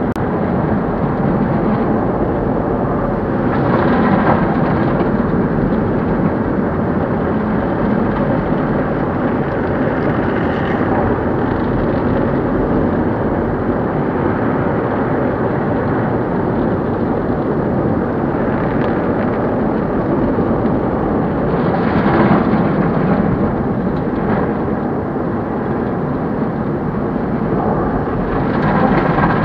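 Automatic car wash running over the car, heard from inside the cabin: a loud, steady rush of spraying water and wash equipment on the body and glass. It swells three times, about four seconds in, about two-thirds through and near the end.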